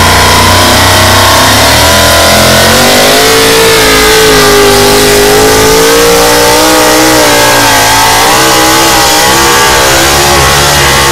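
Hot-rod Oliver pulling tractor's engine at full throttle through open stacks while dragging a weight-transfer sled. Its pitch climbs about two seconds in, then wavers up and down under the load of the pull. Very loud.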